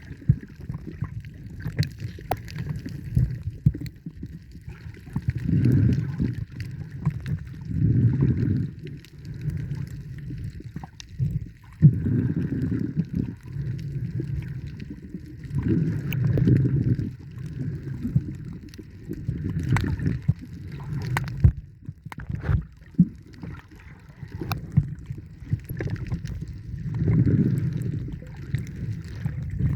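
Water sloshing and gurgling against the microphone, swelling and fading every few seconds, with scattered small clicks.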